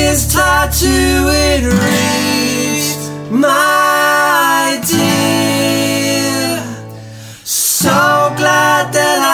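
Two acoustic guitars played with men's voices singing over them, in an acoustic folk song; the music drops away briefly about three-quarters of the way through.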